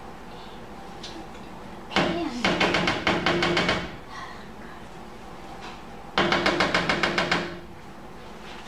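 Spatula scraping brownie batter out of a bowl into a metal baking pan, in two bursts of rapid rattling knocks, each about a second and a half long.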